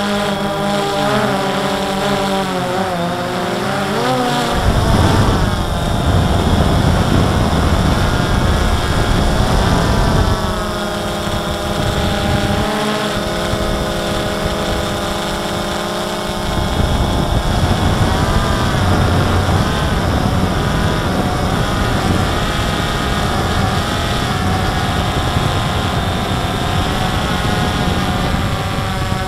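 DJI Phantom 2 quadcopter's motors and propellers whining close to the on-board microphone, the pitch gliding up and down as the throttle changes. From about four seconds in, wind rumbles on the microphone under the motor sound.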